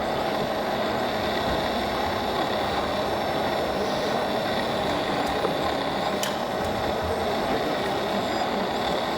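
Steady engine sound of RC model trucks and construction machines running, heard over the general noise of a busy exhibition hall, with two faint clicks a little past the middle.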